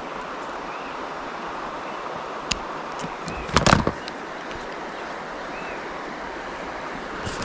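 Steady rush of flowing water, with a single click and then a brief cluster of knocks a little past halfway.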